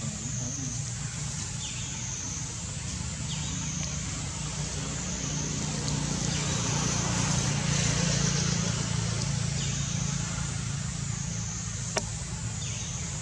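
Low, steady hum of a motor vehicle that swells to its loudest a little past halfway and then eases off, over a high whine that wavers evenly up and down. A single sharp click near the end.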